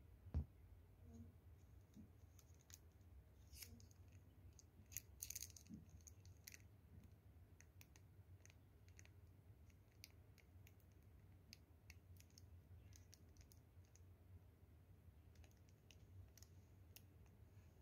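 Near silence with faint scattered small clicks and handling noises, a soft thump about half a second in, and a brief cluster of clicks around the middle.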